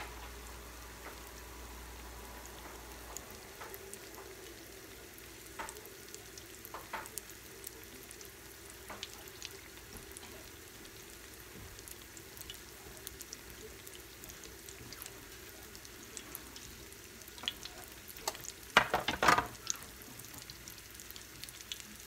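Panko-battered corn dogs deep-frying in hot vegetable oil in a cast iron skillet: a steady sizzle with scattered pops, and a short, louder burst of crackling near the end.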